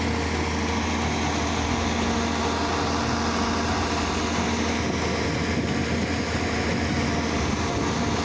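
A machine's engine running steadily with a constant low hum, as construction machinery works.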